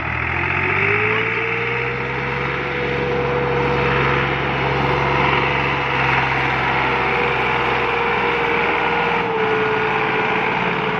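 Massey Ferguson 260 tractor's three-cylinder diesel engine running hard and steady under a heavy load, pulling a loaded trolley through sand. A steady whine rises about a second in and holds, dipping slightly near the end.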